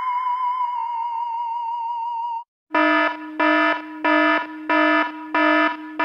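A steady, slightly wavering electronic tone with a faint hiss cuts off about two and a half seconds in; after a brief gap a buzzing alarm sounds in short, evenly repeated blasts, about three every two seconds.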